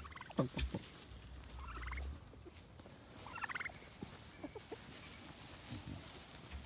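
Turkey gobbling twice, each gobble a quick rattling series of notes, about a second and a half apart, with a few soft knocks around them.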